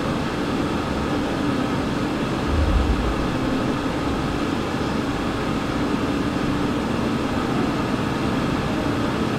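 Steady room noise in a hall: a constant hiss with a faint low hum, and a single brief low thump about two and a half seconds in.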